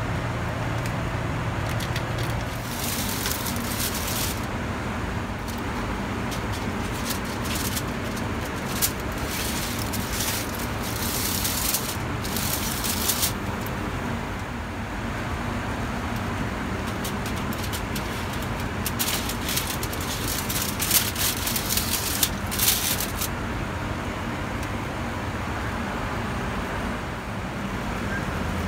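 Steady in-flight aircraft cabin drone heard in the galley, with a low steady hum under it. Several spells of crinkling and clicking from handling foil trays and packaging come and go over it.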